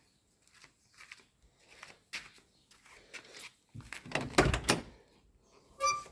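Scattered light clicks and knocks, then a heavy clunk with a short rattle about four seconds in and a brief squeak near the end. No engine is running yet.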